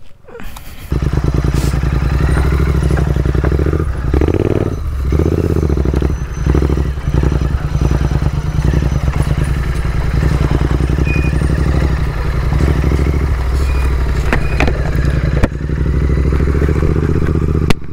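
Royal Enfield Continental GT 650's 648 cc parallel-twin engine running as the motorcycle is ridden on a dirt track. The engine comes in about a second in, and the note dips and rises several times between about four and seven seconds in.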